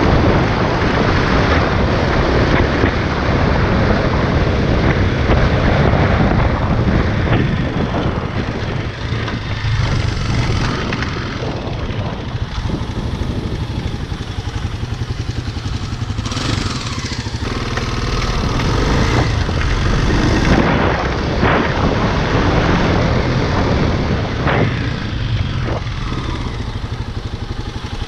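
Kawasaki dirt bike engine running under way with wind on the microphone, then settling to a steady idle after about nine seconds.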